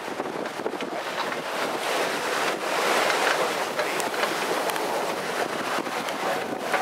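Wind buffeting the microphone and water rushing along the hull of a sailing yacht running fast under sail. A steady rush that grows a little louder about two seconds in.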